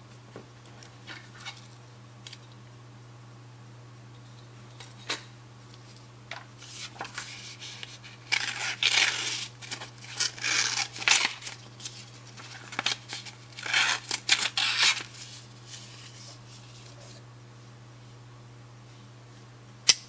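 Stainless-steel pocket knife blade slicing through a sheet of paper in a series of rasping cuts, with a few light handling clicks before them and one sharp click near the end.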